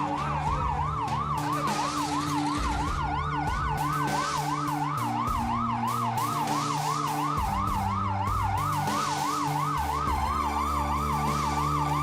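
Emergency vehicle siren in a fast yelp, its pitch rising and falling about three times a second, with a second siren tone gliding slowly upward alongside it.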